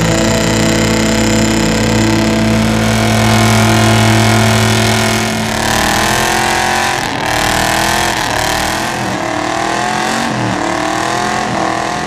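Lifted mud-bog pickup's engine running hard at high revs in a mud pit. From about halfway in it is revved up and down repeatedly in rising surges.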